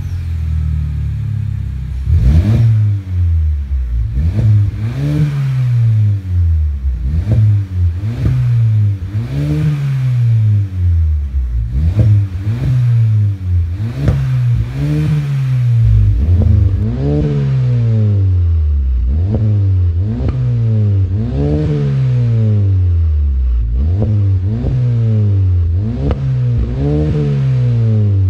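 GAC Empow's 1.5-litre turbocharged four-cylinder engine revved through an aftermarket catback exhaust with dual exits. The throttle is blipped again and again, about once every two seconds, each rev rising and then falling back toward idle.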